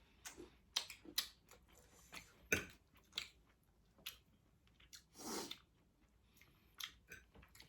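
Faint sounds of someone chewing and eating spicy noodles, with scattered small mouth clicks and a short noisy burst about five seconds in.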